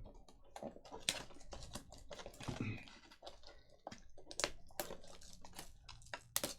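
Trading cards being handled: irregular light clicks and short rustles as cards are slid, flicked and stacked, with a few sharper snaps.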